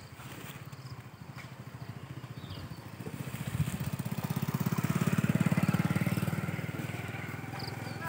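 A small engine running with a fast, even pulse, growing louder to a peak about five seconds in and then fading.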